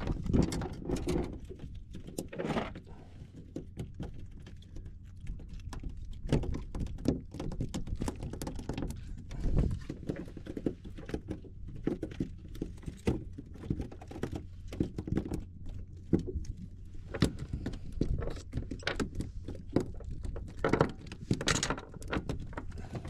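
Irregular knocks, taps and light clatter on a small boat's deck as horse mackerel are landed from a sabiki rig and unhooked, the fish flapping against the deck.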